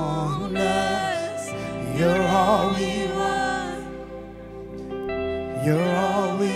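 Live gospel worship music: a singer's voice running in wavering, ornamented lines over sustained held chords, swelling twice.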